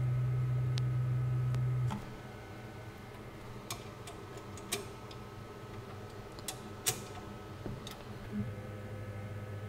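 A steady low hum that cuts off about two seconds in, then scattered metallic clicks and clinks of a ratchet wrench tightening the clamp nuts on the mill table. A fainter low hum starts near the end.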